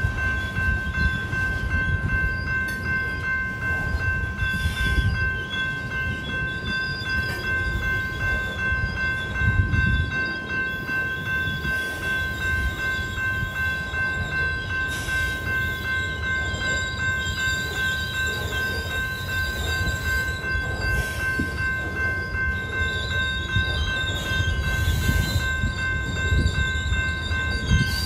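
Covered hopper cars of a grain train rolling through a grade crossing, their wheels making a steady low rumble on the rails. Over it the crossing's General Signals type 2 electronic bell rings continuously as a fast-repeating high tone, and a wavering high squeal comes and goes.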